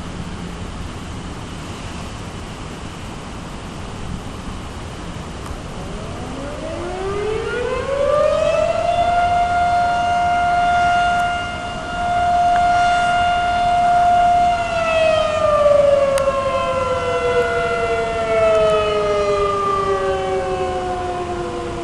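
Outdoor civil-defense warning siren winding up from about six seconds in, holding a steady wail for several seconds, then winding slowly down, over a steady rushing background noise.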